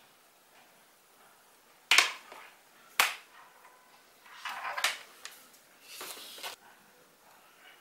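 Fabric camera shoulder strap being handled: two sharp clicks about two and three seconds in, then the webbing rustling as it is pulled through, twice.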